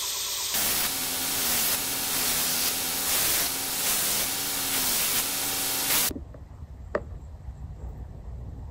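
Belt grinder running, with a steel letter-opener blade ground against the belt in repeated passes, a dense hiss over the motor hum. It cuts off abruptly about six seconds in, leaving a quieter background with a single click.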